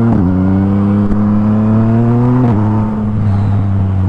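Yamaha MT-09's three-cylinder engine under acceleration: the engine note drops at an upshift right at the start, climbs steadily, then drops again at a second upshift about two and a half seconds in and holds steady after.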